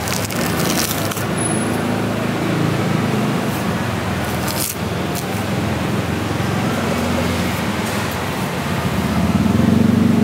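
A vehicle engine runs steadily close by over general traffic noise. A few short scrapes cut through it in the first second and again about halfway.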